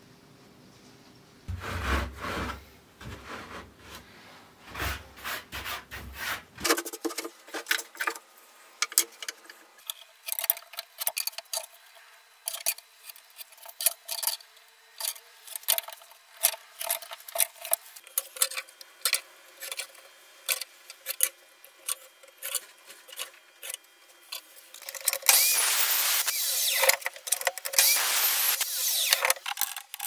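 Handwork on pine boards on a workbench: a few heavy wooden knocks as boards are handled, then many light scrapes and taps of a pencil and square marking a board. About five seconds before the end comes a louder, continuous rasping rub.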